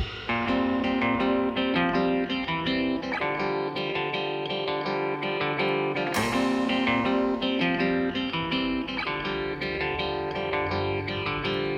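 Background music: a plucked guitar picking out a run of single notes, one after another.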